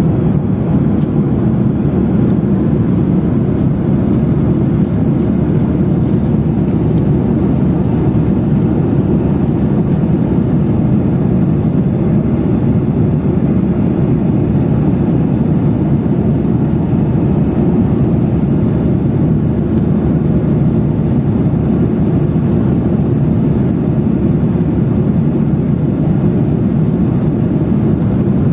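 Jet airliner cabin noise in flight: a steady, loud, low rumble of the engines and rushing air, heard from inside the passenger cabin.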